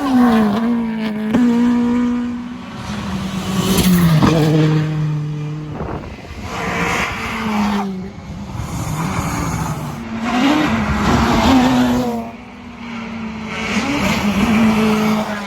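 Rally car engine revving hard, its note rising and dropping through repeated gear changes and swelling and fading several times, with tyres squealing and skidding.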